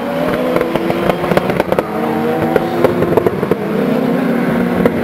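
Several kartcross racing cars' engines revving on a dirt track, their pitches rising and falling as they overlap, with scattered sharp pops through the middle.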